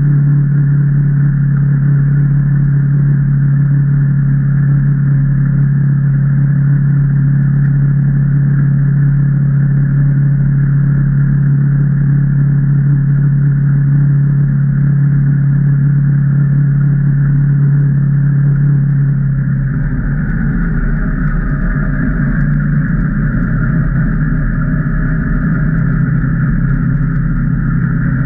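2019 Can-Am Maverick Trail 800 side-by-side, its 800 cc Rotax V-twin running steadily under way on the trail. About twenty seconds in, the engine note changes from a smooth steady drone to a rougher, busier sound.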